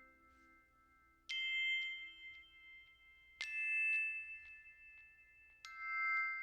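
Background music of high bell-like notes: three strikes about two seconds apart, each ringing on and fading slowly.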